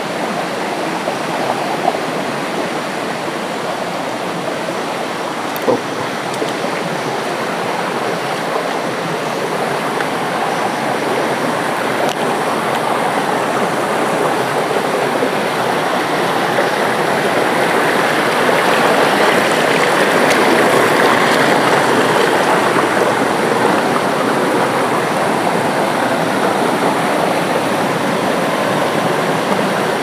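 Shallow rocky jungle stream flowing and splashing over boulders, a steady rush of water that grows a little louder toward the middle. A single brief knock about six seconds in.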